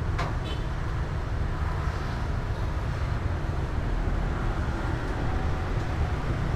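Steady low outdoor rumble, wind on the microphone mixed with street noise, with a brief click just after the start.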